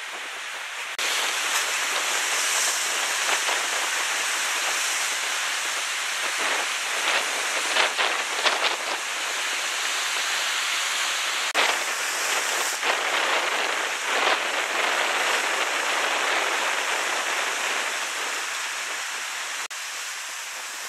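Sea surf surging and breaking against a lava-rock shoreline: a steady rush of churning water with sharper splashes now and then. It comes up suddenly louder about a second in.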